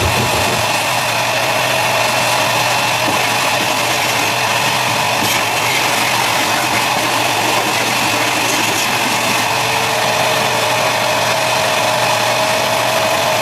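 Vacuum cleaner motor running steadily: a rush of air with a constant high whine. A lower whine joins about ten seconds in.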